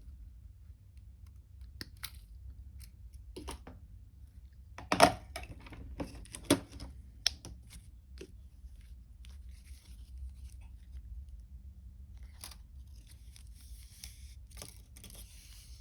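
Fine jewellery wire and small tools being handled: scattered light clicks and rustles, a sharper click about five seconds in and two more soon after, and a longer scraping rustle near the end.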